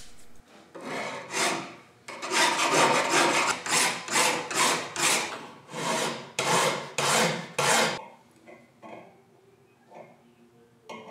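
Hand file rasping across the steel legs of a forged divider clamped in a vise, cutting the bevels: a steady run of push strokes about two a second. The filing stops about eight seconds in, leaving only faint handling sounds.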